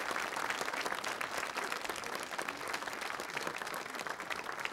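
Studio audience applauding, many hands clapping in a steady, even wash.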